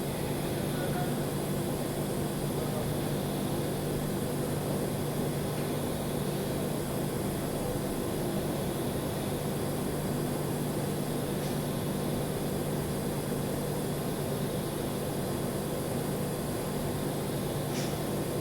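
Welding arc on 4-inch stainless steel, running steadily as an unbroken hum and hiss with no stops.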